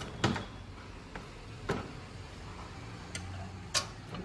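Microwave oven door being opened and a cup being handled: a few short, sharp clicks and clunks, the three loudest about a second and a half apart, with fainter ticks between.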